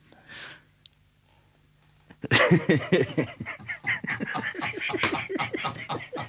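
Near silence with a faint breath, then about two seconds in a loud burst of laughter breaks out and keeps going.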